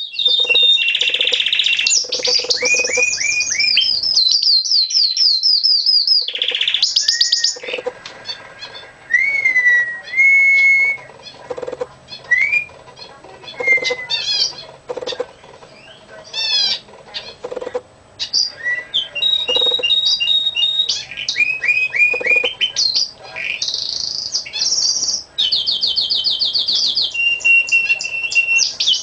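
Pet canary singing: fast trills of quickly repeated high notes, then a sparser stretch of separate whistles and short rising notes in the middle, before the rapid trills return.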